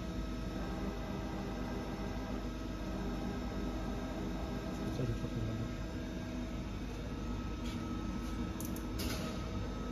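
Akira Seiki 5AX AC650 five-axis CNC machining center running, a steady hum with a thin whine of the drives as the trunnion table and rotary table move. A few faint ticks near the end.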